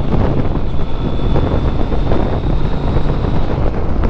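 Steady wind rush buffeting the microphone on a moving motorcycle, with the Kawasaki Z900RS's inline-four engine running underneath at a steady pace.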